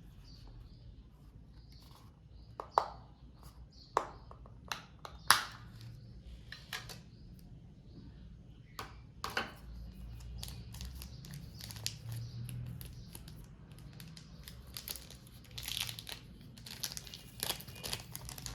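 Plastic packaging being crinkled and torn open by hand, with scattered sharp clicks and taps from handling; the sharpest click comes about five seconds in, and the rustling picks up near the end.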